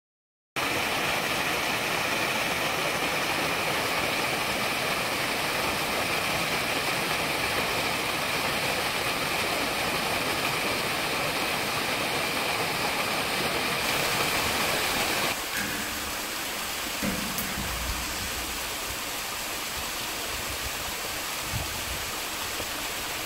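Small woodland waterfall splashing and rushing steadily over rock. About fifteen seconds in it changes to a thinner cascade, a little quieter.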